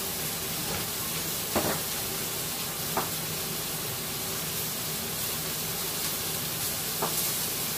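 Ribeye steak sizzling steadily in a hot cast iron pan, with three short knocks about a second and a half, three and seven seconds in.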